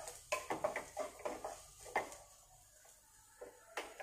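Spatula scraping and knocking against a nonstick kadai while stirring grated carrot and onion with ground spice powder: quick strokes about three a second for the first two seconds, a pause, then one more stroke near the end.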